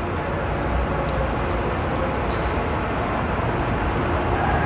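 Steady vehicle noise: a low rumble with an even hiss above it and a faint steady hum.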